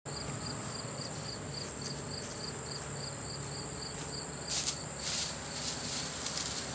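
Insects calling steadily: a continuous high drone with a chirp pulsing about three times a second. About four and a half seconds in, footsteps on grass and the rustle of dry brush being handled come in, louder than the insects.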